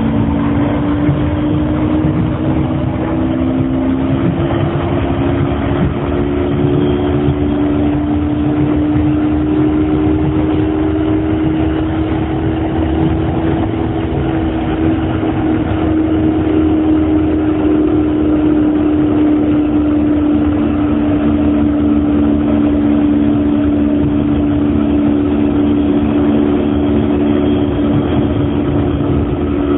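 Running sound of a Hiroshima Astram Line 6000 series car under shunt-wound chopper control, heard on board: a low traction-motor hum of several steady tones that rise slightly in the first half and then hold level, over the rumble of the running gear. This car's motor sound is abnormal, a low hum rather than the high-pitched chopper whine of similar trains.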